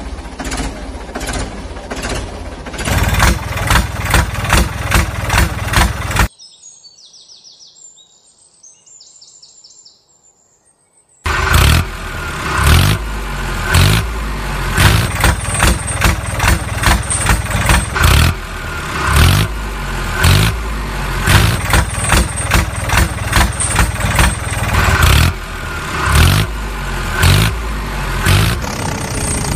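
Engine running with a regular chugging beat. About six seconds in it drops away to a faint hiss for about five seconds, then comes back.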